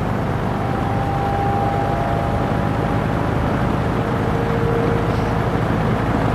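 Penncrest 50 box fan with a McMillan motor running steadily on low speed: an even rush of air over a low motor hum.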